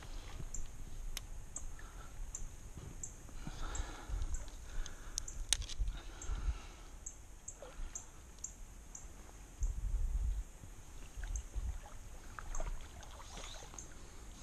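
A kayak being handled on a creek: low thumps and short swishes of water and movement. A faint high tick repeats about twice a second throughout.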